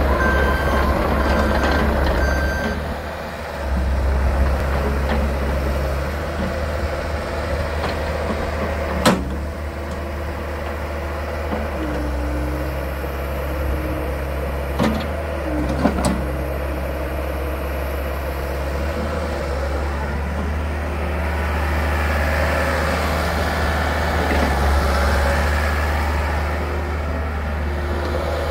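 2005 Bobcat 442 mini excavator's diesel engine running steadily under hydraulic load as the machine moves, with its travel alarm beeping in the first couple of seconds. A few sharp knocks sound around the middle.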